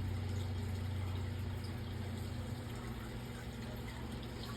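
Aquarium filter pump running: a steady rush of moving water over a low, even motor hum.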